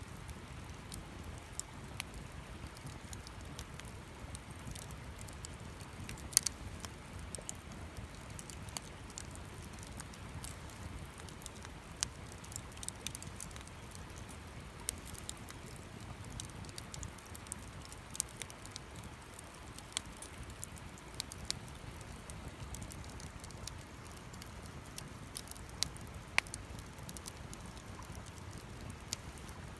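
Wood campfire crackling, with irregular sharp pops over a low steady rumble; the loudest pop comes about six and a half seconds in.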